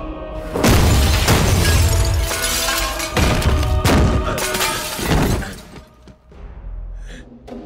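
Glass door panes shattering in a run of loud crashes and heavy impacts for about five seconds, over background music.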